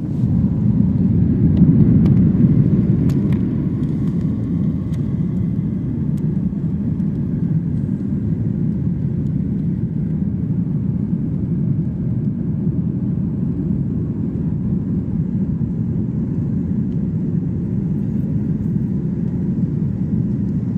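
Jet airliner heard from inside the cabin during takeoff: a steady, deep rumble of engines and rushing air, a little louder in the first few seconds, with a few faint clicks and rattles early on.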